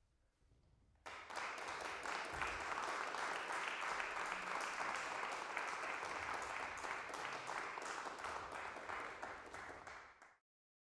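Audience applauding, starting abruptly about a second in and cutting off suddenly near the end.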